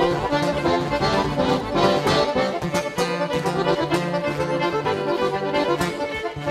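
Live north-eastern Brazilian band music: accordion playing the lead over a band with guitar, bass, fiddle and drums, in an instrumental passage with no singing.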